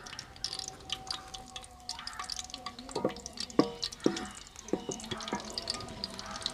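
Cumin seeds crackling and popping in hot mustard oil in an aluminium karahi: a steady scatter of small pops. A few louder knocks from the wooden spatula against the pan come between about three and five seconds in.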